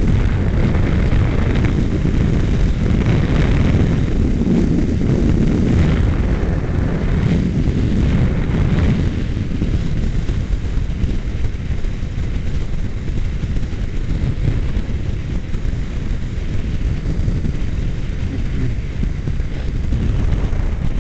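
Strong wind buffeting the microphone of a motorcycle riding at speed, a dense steady rumble with the bike's engine and road noise mixed in; it eases a little after about nine seconds.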